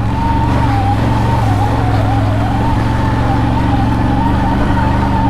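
CFMoto CFORCE 1000 Overland ATV's V-twin engine running steadily while riding a trail, with a thin, slightly wavering high whine riding above it.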